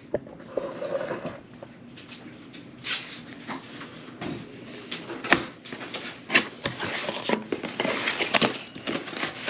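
A cardboard box being handled and shifted on a wooden table: rustling and scraping with scattered sharp knocks, starting about three seconds in.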